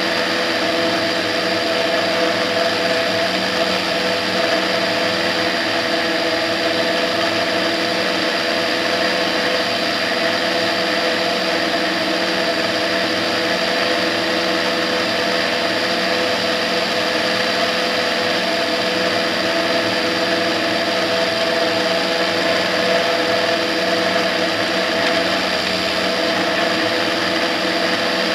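Tetras ultralight aircraft's engine and propeller running steadily in cruise flight: a constant drone of several steady tones over a rush of air noise.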